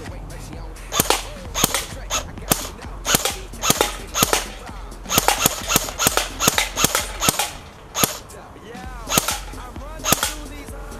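Battery-powered airsoft AK-74 replica firing 6 mm BBs as rapid single shots, about twenty sharp cracks at uneven spacing, with a short pause before the last two shots.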